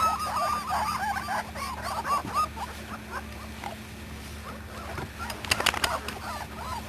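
Young puppies squeaking and whimpering, many short high cries overlapping in quick succession; they thin out midway and pick up again near the end. A few sharp clicks sound about five and a half seconds in.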